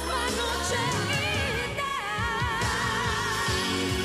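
A woman singing a pop song over a band accompaniment, her voice wavering with vibrato; about halfway through she holds one long note.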